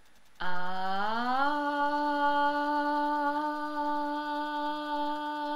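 A woman's sustained voiced tone, a pitch glide of the kind used in a voice assessment: it starts low about half a second in, rises smoothly over about a second, then holds steady on one pitch.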